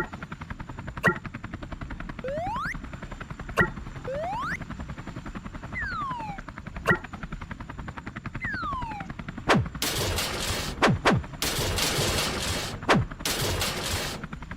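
Cartoon sound effects: a string of short whistle-like pitch slides, some rising and some falling, with sharp clicks between them. In the last few seconds come loud bursts of noise.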